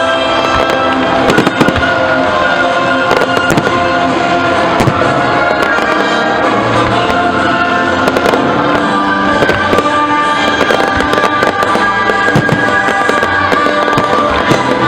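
Fireworks going off, many sharp bangs and crackles in quick succession, over loud music playing.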